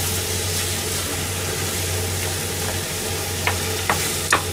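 Chopped vegetables and beans sizzling in a frying pan on a gas hob while a spatula stirs them, with a few sharp knocks of the spatula against the pan near the end. A steady low hum runs underneath.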